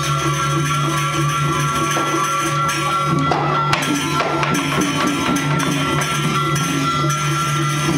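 Balinese gamelan ensemble playing, with steady held metallic tones under a busy, quick percussive beat.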